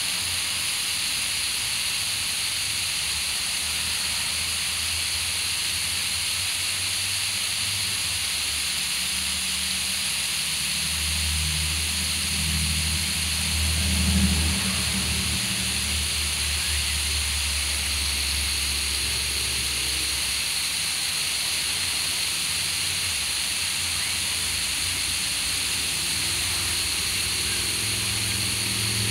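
Garden hose spray hissing steadily as it falls on a lawn. A low rumble swells about ten seconds in, peaks briefly, and fades out a few seconds later.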